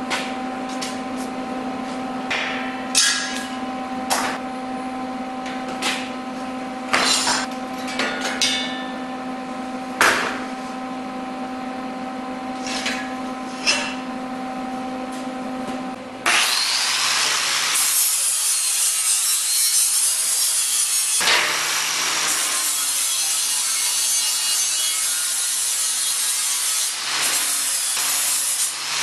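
Sharp metal clanks and knocks of steel parts being handled over a steady hum. About halfway through, a 4½-inch angle grinder starts and grinds plasma-cut steel plate, running loud and steady with two short dips.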